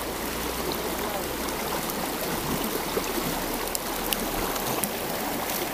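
River water running steadily over a stony bed, with a few faint clicks in the second half.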